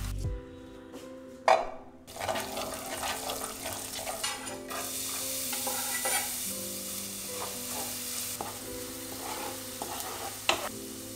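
Minced shallots sizzling in melted butter in a grey ceramic pan, stirred and scraped with a spatula. A sharp knock comes about a second and a half in.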